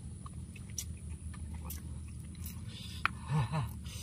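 People eating softshell turtle meat with their fingers: quiet chewing, sucking and small mouth clicks over a steady low hum. About three seconds in comes a sharp click and a short slurp, followed by two brief low mouth sounds.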